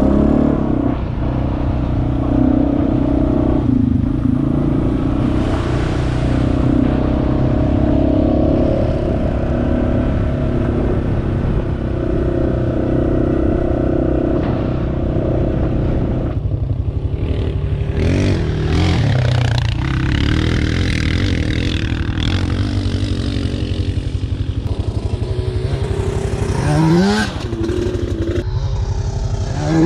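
Honda utility ATV's engine running steadily under way on a rough sand trail, with the machine rattling over the ruts. Near the end the revs rise briefly twice.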